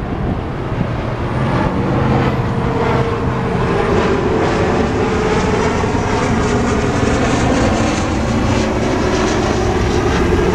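Loud, steady vehicle noise, a rushing engine sound that swells about two seconds in and then holds.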